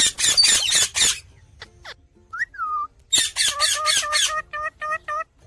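Indian ringneck parrot chattering in harsh, screechy bursts, with one gliding whistle a little past two seconds in and a quick run of repeated whistled notes near the end.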